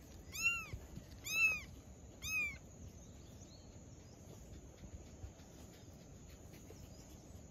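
A very young tabby kitten mewing: three high mews, each rising and falling in pitch, about a second apart in the first two and a half seconds.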